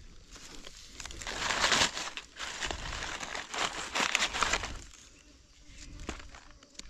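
Dry fallen leaves rustling and crunching as gloved hands and a knife dig a mushroom out of the leaf litter, loudest in the first five seconds, then quieter with a few light clicks.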